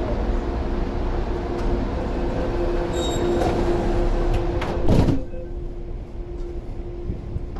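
Sliding doors of an MTR Airport Express CAF train closing, ending in one loud thud as the door leaves meet about five seconds in. Over a steady hum, after which the sound is quieter and duller.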